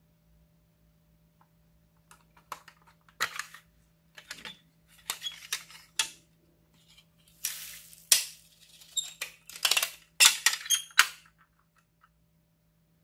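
Pink plastic candy-shaped case being handled, opened and closed: a run of sharp plastic clicks and short scraping rustles, loudest about ten seconds in.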